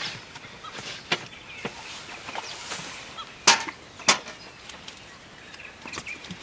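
A handful of sharp knocks and clacks at irregular intervals, the loudest about three and a half seconds in.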